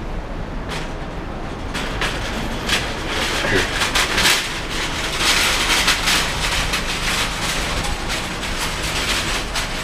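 Rapid rattling clatter of a hand trolley's small wheels rolling over pavement tiles, over steady street noise; the clatter starts about two seconds in.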